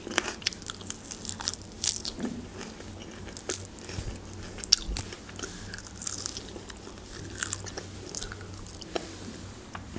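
Close-up eating sounds of a person biting and chewing grilled chicken held in the fingers: scattered short, sharp crunches and clicks.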